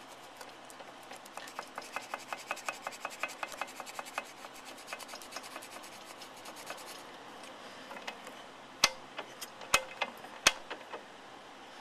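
Piston of a 1976 AMF Harley-Davidson SS 250 two-stroke single, cylinder removed, rocked back and forth by hand on its rod: a rapid run of light metallic clicks, about ten a second, then three sharper knocks near the end. The clicking is the play from excessive wear after the piston scuffed running lean, which the owner takes for the source of the engine's ticking and piston slap.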